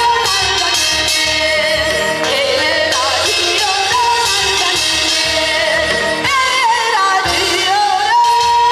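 A woman singing a Korean song into a microphone over an amplified backing track with a steady beat, her voice wavering with vibrato; near the end she holds a long note.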